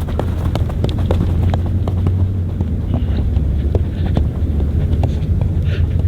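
Quick, irregular light taps of feet on a football and on the ground, several a second, as in close dribbling. A steady low rumble of wind on the microphone lies underneath.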